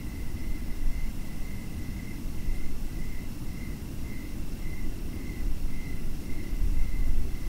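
A cricket chirping in a steady rhythm, about two short chirps a second, over a constant low rumble.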